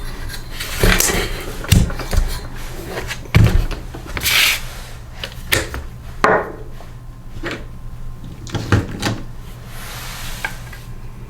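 Tools and metal engine parts being handled during an engine teardown: irregular knocks and clatters as things are picked up and set down, with a brief scraping rub about four seconds in.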